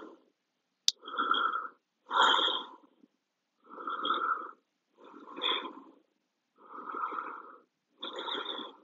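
A yoga practitioner breathing heavily through a held seated forward fold: six loud, hissing breaths at an even pace, about one and a half seconds apart.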